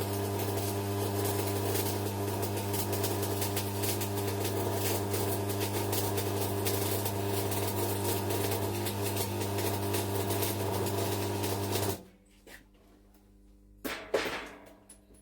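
Stick (arc) welding machine set at 80 amps, with a steady mains hum and the crackle of the arc as a bead is run. The hum and crackle stop abruptly about twelve seconds in, and a couple of short knocks follow near the end.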